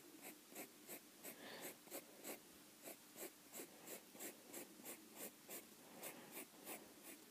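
Faint scratching of a drawing tool on paper in quick, short, evenly repeated strokes, about three a second, as a horse's mane is sketched in.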